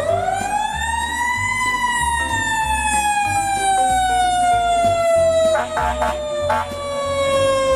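Fire engine siren that sweeps up quickly to a high pitch, then slides slowly and steadily down over several seconds as it winds down. A few short bursts of noise come about six seconds in.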